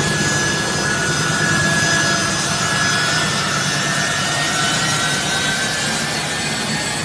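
Turbofan engines of a U.S. Air Force C-17 transport running as it taxis: a steady rushing roar with a high whine that drifts slightly lower.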